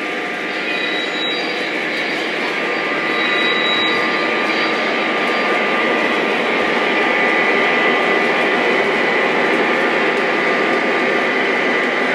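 Model train running past on track: the locomotives' motors and the wheels rolling on the rails make a steady rumbling hum with a faint whine, growing a little louder over the first few seconds as the train nears.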